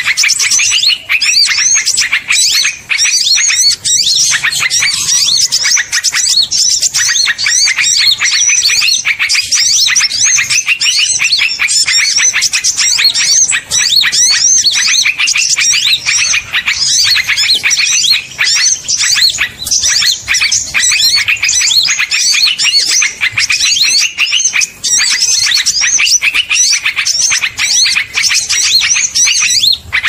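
Small-bird lure recording: many small songbirds chirping and twittering at once in a loud, dense, high-pitched chatter that never lets up. It is played to call small birds in to be caught.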